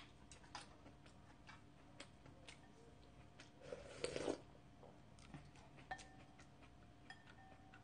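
Faint eating sounds: scattered small mouth and utensil clicks, and a short slurp from a wooden spoon of kimchi stew about four seconds in.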